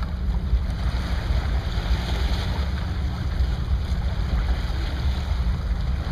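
Wind buffeting the microphone over open water, a steady low rumble that flutters in level, with water lapping beneath it.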